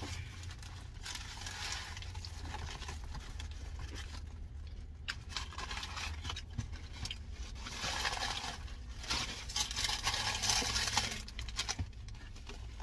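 Chewing a toasted chalupa, with crunching in irregular bursts, over a low steady hum.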